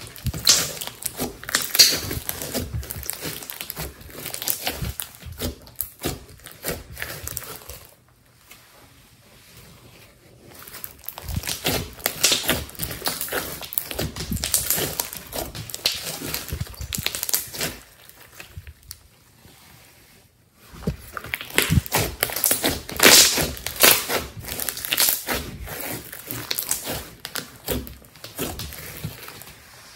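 Thick slime squished and pressed by hand on a tabletop, making a dense run of wet clicks and crackly pops. It comes in three spells of kneading with short quieter pauses between them.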